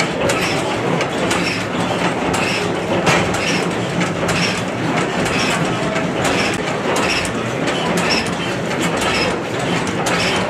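1892 Charter 11 hp stationary gas engine running among other antique engines: a dense clatter of sharp mechanical clicks from the valve gear and moving parts over a steady low run, with a regular beat about once a second.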